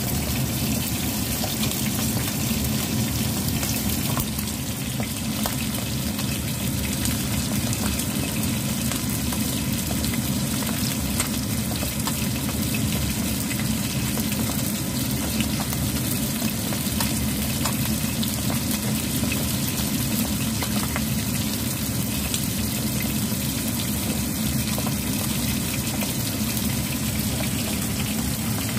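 Fish frying in shallow oil in a pan: a steady sizzle with scattered crackles and pops, over a steady low hum.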